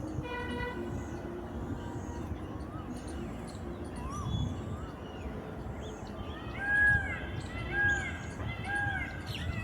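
A bird calling a series of short, arched notes about once a second, starting about six and a half seconds in, over a low rumble of distant traffic. A brief horn toot sounds near the start.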